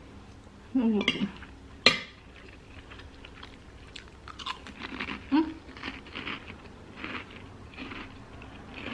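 A person chewing a mouthful of food, then biting into a kerupuk (fried Indonesian cracker) and crunching it with a run of short crisp crunches from about four seconds in.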